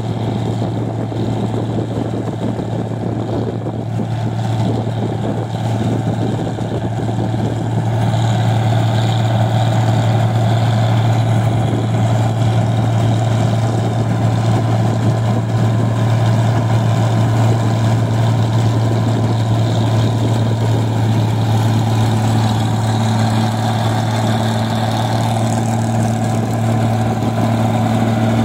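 Tracked New Holland Clayson 1545-S combine harvester running steadily while harvesting rice: a steady low engine hum with its machinery running. It gets a little louder about eight seconds in, and a higher steady hum joins about two-thirds of the way through.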